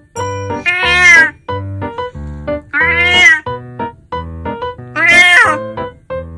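A 20-year-old cat meowing loudly three times, about two seconds apart. Each is a long meow that rises then falls in pitch. These are complaining meows from a cat in a tantrum after being cut short of her walk.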